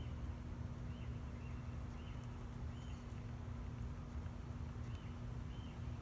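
Downy woodpecker calling: short, high, single notes, about six of them spaced unevenly across a few seconds. They sit over a steady low rumble and a faint hum.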